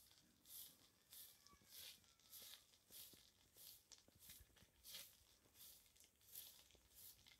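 Footsteps crunching at a steady walking pace, a little under two steps a second.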